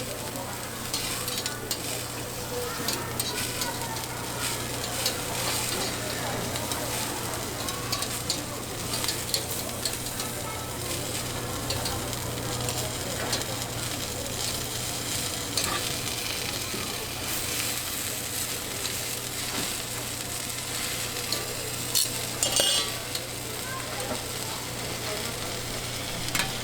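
Banh xeo frying in a hot oiled pan: steady sizzling, with a few sharp clicks of a cooking utensil, a cluster of them about twenty-two seconds in.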